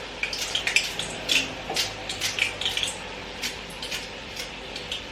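Kitchen knife cutting carrot and potato on a cutting board: irregular sharp knocks, about three a second, over a faint steady hiss.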